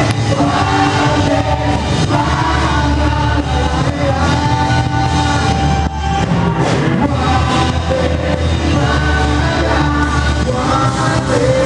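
A rock band playing with a lead vocal, the singer holding long sung lines over steady bass and drums.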